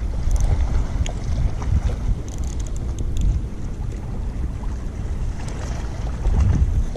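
Wind buffeting the microphone in a low, uneven rumble, with a few faint light clicks scattered through.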